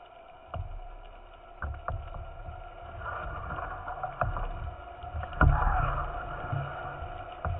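Sea water sloshing and lapping around a camera held at the surface, with a few sharp knocks, the loudest about five and a half seconds in.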